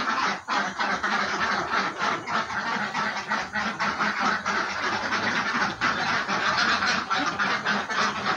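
A flock of laying ducks quacking and chattering, a dense continuous din of overlapping short calls, as they crowd around their feed basins.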